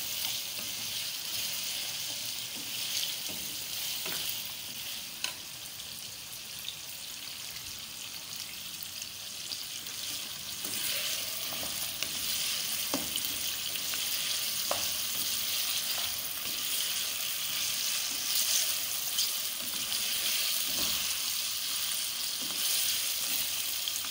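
Boiled mutton pieces sizzling steadily as they fry in oil in a nonstick karahi. A wooden spoon stirs them, with an occasional click or scrape against the pan.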